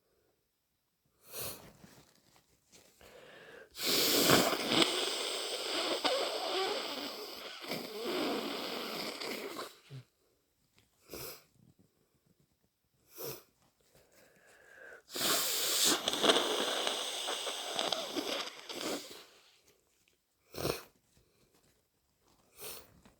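A person with a heavy head cold blowing their nose into a tissue twice, each a long, wet, gurgly blow lasting several seconds, with short sniffs before, between and after. The wetness is mucus from the congested nose.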